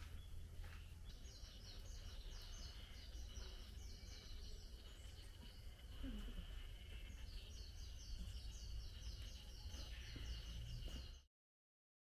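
Faint forest ambience: rapid high chirping notes repeated in two phrases of a few seconds each, over a steady high buzz and a low rumble. The sound cuts off abruptly just before the end.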